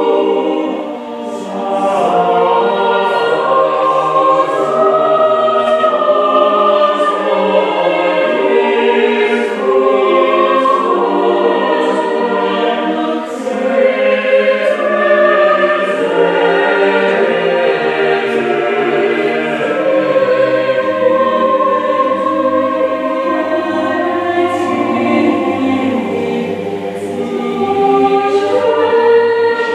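Mixed chapel choir singing a sacred choral piece in several-part harmony, with sustained chords and clear sung consonants.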